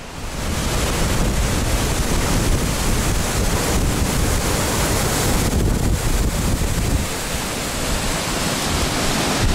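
Wind buffeting the microphone over the steady rush of a river, a dense noise with a gusty low rumble.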